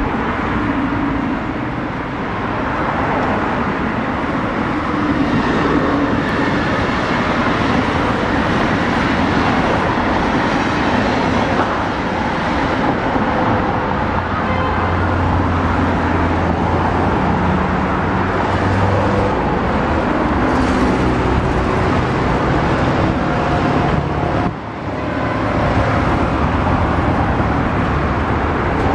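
Continuous road traffic noise: a steady rumble with the low engine hum of passing vehicles, heaviest in the middle, and a short dip about 25 seconds in. An electric multiple-unit train may add to it as it runs along the line at a distance.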